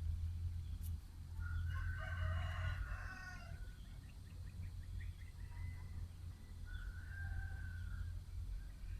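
A rooster crows once, a call of about two seconds starting a second and a half in, and a shorter bird call follows near the end, over a steady low rumble.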